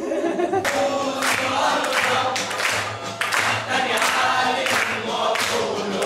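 A group of young people singing together in chorus, with hand claps keeping time about twice a second.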